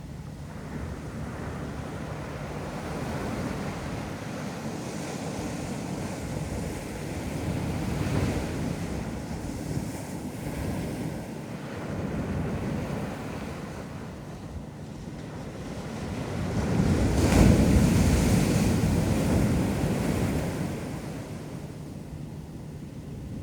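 Ocean waves washing onto a beach, a steady surf that swells and ebbs, with one larger wave breaking loudest about two thirds of the way through. Wind buffets the microphone.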